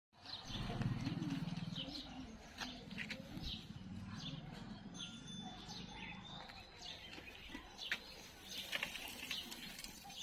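Birds chirping, with many short calls throughout, over a louder low rumble in the first two seconds.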